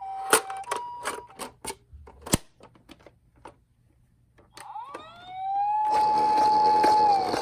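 Toy ambulances' electronic sirens: a two-tone hi-lo siren cuts off within the first second, followed by a run of clicks and knocks. About five seconds in, a wailing siren rises in pitch, holds steady and starts to fall near the end, over a loud rushing noise.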